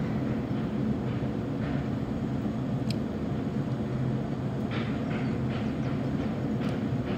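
A machine running with a steady low hum, and a few faint short higher sounds about five and six and a half seconds in.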